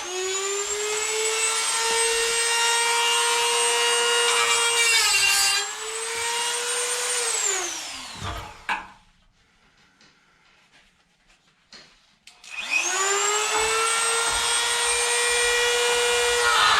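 Hand-held electric grinder spinning up to a steady high whine and cutting into steel plate, the whine sagging and roughening as it bites. About eight seconds in it winds down with a falling pitch. After a few seconds' pause with a couple of light clicks, it spins up again near thirteen seconds.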